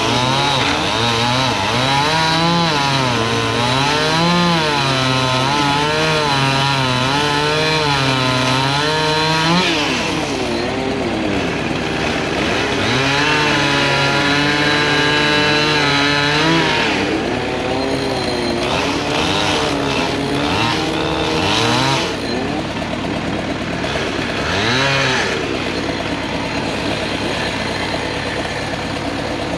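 Chainsaw cutting small trees, its engine revving up and down again and again and holding high for stretches. It eases off about ten seconds in, cuts again, then settles to a lower, steadier running sound for the last few seconds.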